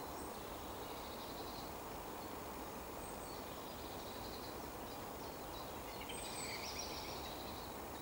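Woodland ambience: a steady background hiss with songbirds singing faintly over it in short high trills and whistles, the fullest phrase about six to seven seconds in.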